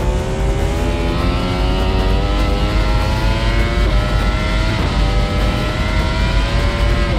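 Two-seater MotoGP racing motorcycle under full throttle with heavy wind rush, its engine note climbing steadily through a gear, shifting up about four seconds in and again near the end.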